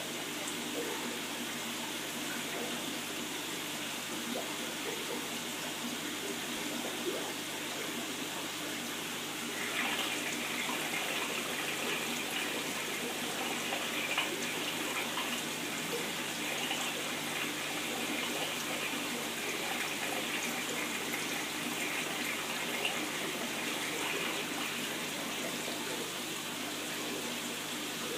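Steady running and splashing water from the aquarium's circulation, a continuous rush that grows a little louder and brighter about ten seconds in.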